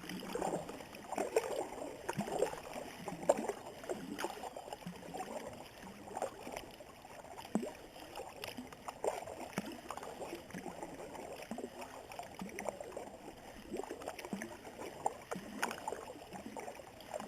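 Kayak being paddled: irregular paddle strokes swishing and splashing through the water, with occasional sharp knocks.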